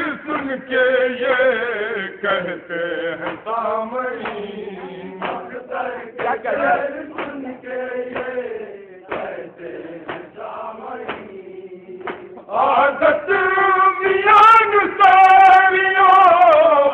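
A man's voice chanting verses in a sung style through a microphone and loudspeakers, with long held, wavering notes, louder and more sustained from about twelve seconds in.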